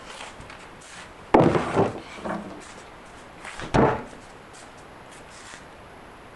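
Clunks and knocks from parts of an AEG washing machine being shut. A loud cluster comes about a second and a half in, and a second single knock comes near four seconds.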